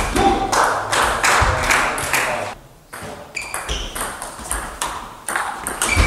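Table tennis rally: the celluloid ball clicking quickly against rackets and table, with a short pause about two and a half seconds in before the hitting resumes.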